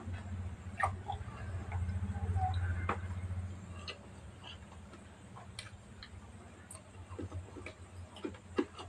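Close-up eating sounds: chewing and lip smacking with many scattered short clicks, over a low steady hum that is louder for the first three or so seconds.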